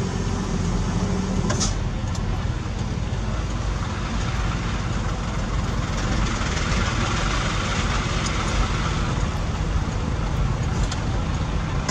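Heavy diesel engine running steadily at an even speed, with a couple of faint clicks.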